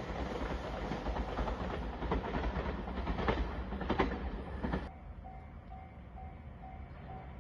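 A train passing close by, its wheels clacking over the rail joints, until the sound cuts off abruptly about five seconds in. After that a railway crossing alarm dings faintly and evenly, about two to three strokes a second.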